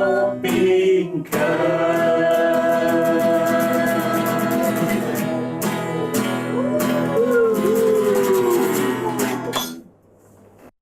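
Singing with acoustic guitar strumming: a long held note, then a short closing phrase, and the song ends with a fade about ten seconds in.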